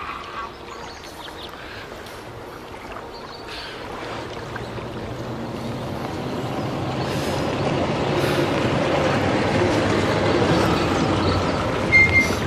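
A steady rushing noise that swells over several seconds, with a brief high tone near the end.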